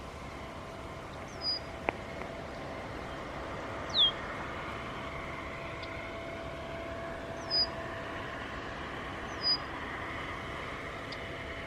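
A bird calling with short, sharp down-slurred whistles, four times a few seconds apart, the one about four seconds in the loudest, over a steady low background hum.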